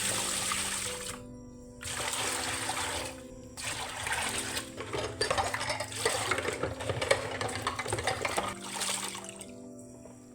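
Water running from a tap, starting and stopping a few times, over soft background music with held notes.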